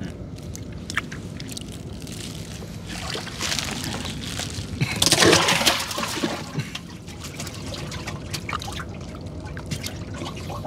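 Water trickling and splashing from a wet fishing net as fish are picked out of it, with small clicks throughout. A louder rush of splashing comes about five seconds in and lasts about a second.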